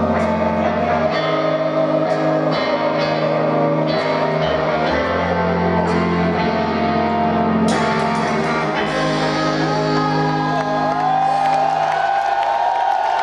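Live rock band with distorted electric guitars, bass and drums playing a heavy closing passage, heard loud from within the crowd. A big hit about eight seconds in gives way to a final chord ringing out, with crowd shouts rising over it near the end as the song finishes.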